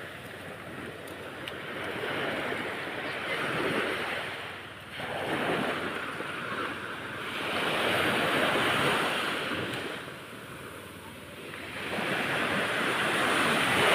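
Ocean waves breaking and washing in, the rushing hiss swelling and falling away every few seconds.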